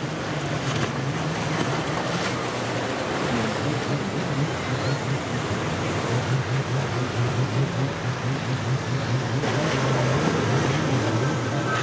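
Powerboat engines running over a steady noise of waves and wind.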